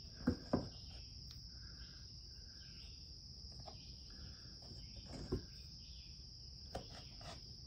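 A Mora knife cutting through rolled noodle dough and tapping onto a wooden cutting board a few times, in short sharp clicks. Under it runs a steady high-pitched insect drone.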